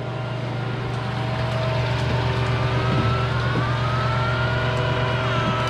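Nugget ice machine running, its gear motor driving the ice-making auger: a steady low mechanical hum, with a faint whine that slowly rises in pitch from about halfway through.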